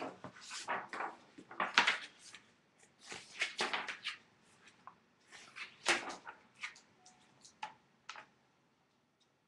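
Irregular rustling and knocking of things being handled close to the microphone, stopping about eight seconds in.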